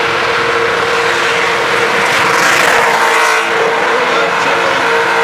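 Commodore doing a burnout: the engine is held at high revs with a steady drone while the spinning rear tyres squeal and scrub on the track.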